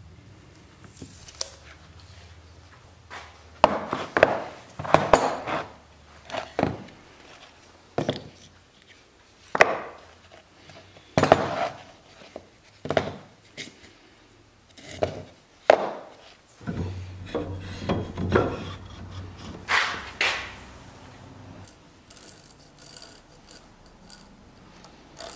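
New wooden wagon brake blocks being handled and fitted: irregular wooden knocks as they are set down and tapped, with short scraping rubs in between.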